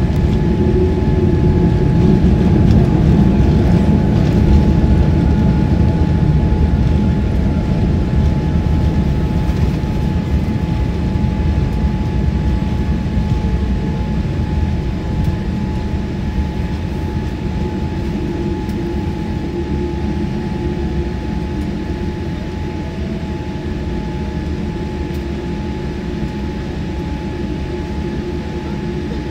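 Airliner cabin noise during the landing rollout: a heavy low rumble from the engines and the wheels on the runway, loudest in the first few seconds and easing off slowly as the plane slows. A faint steady tone runs underneath.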